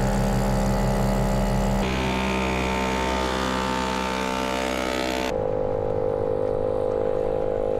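British Seagull two-stroke outboard motors running steadily, heard in three shots cut together, each engine at its own steady pitch.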